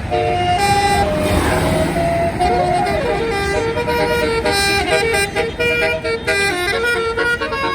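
Multi-tone Basuri 'telolet' bus horn playing a stepped melody of notes, with a rising-and-falling glide a little before the middle and a quicker run of notes in the second half, over the noise of passing traffic.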